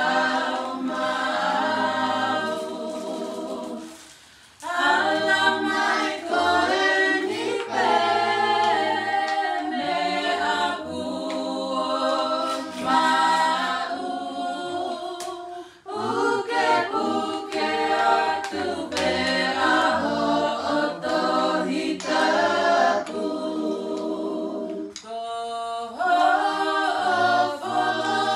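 A Tongan song sung by a group of voices in harmony, choir-style and apparently unaccompanied, in long phrases with short breaks between them.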